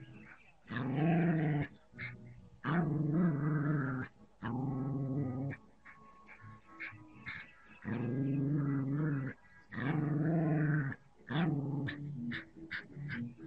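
Small dog growling and snarling at a threat, in about six drawn-out growls of a second or so each with short gaps, then a quicker string of short yaps near the end.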